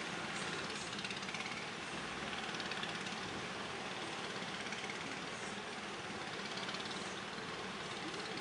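Strong wind blowing: a steady rushing noise that swells slightly now and then.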